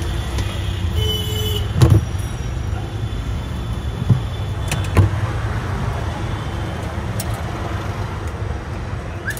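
Steady low rumble of road traffic, with a few sharp clicks scattered through it.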